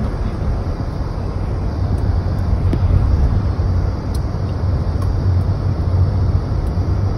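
Steady road noise inside a moving car's cabin: an even low rumble of tyres and engine at cruising speed.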